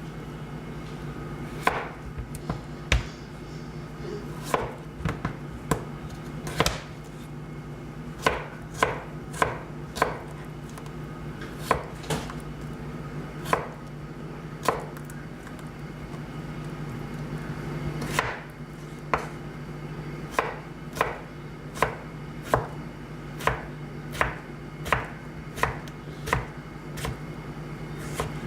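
Knife slicing an English cucumber on a cutting board: single sharp knocks of the blade meeting the board, irregularly spaced at about one a second and coming a little faster in the second half.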